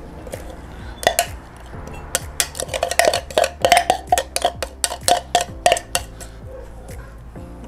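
A quick, irregular run of knocks and clinks of kitchen utensils, about four or five a second, starting about a second in and stopping about six seconds in.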